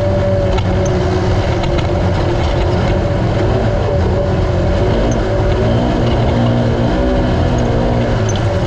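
Naturally aspirated Polaris RZR UTV engine running steadily at high revs, its pitch wavering slightly up and down with the throttle.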